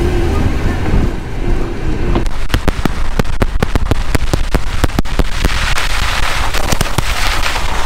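Car tyres rolling on a wet gravel road, heard from outside beside the front wheel: a steady low rumble with wind, and from about two seconds in a fast, irregular crackle of sharp ticks as gravel snaps under the tyres and flicks against the wheel arch.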